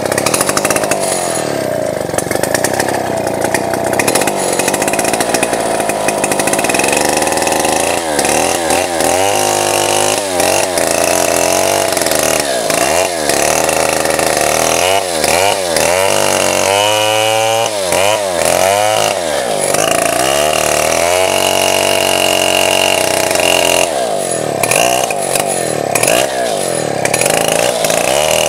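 Two-stroke chainsaw running at high revs while cutting into a sengon log. Its pitch repeatedly sags and climbs back as the chain loads up in the cut, starting about a third of the way in.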